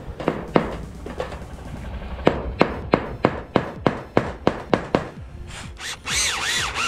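A hammer striking repeatedly, in a quick run of sharp blows about three a second, with a few single blows before it. About six seconds in comes a brief warbling, ringing tone.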